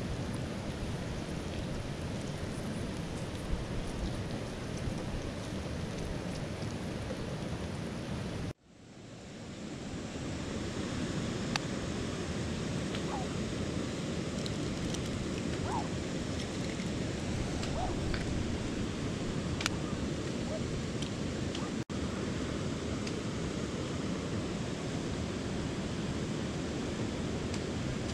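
Mountain torrent water rushing over rocks, a steady noise. It breaks off abruptly about a third of the way in and swells back up, with another brief break later on.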